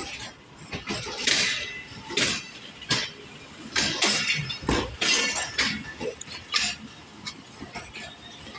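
Irregular sharp metallic clanks and knocks, several a second at uneven spacing: train wheels and couplings clanking as a train moves slowly over the station's track joints and points.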